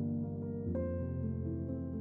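Instrumental background music, with a new chord coming in a little under a second in.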